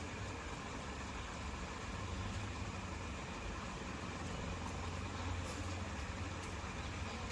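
Steady low hum and hiss of background noise with a few faint clicks, without any clear event.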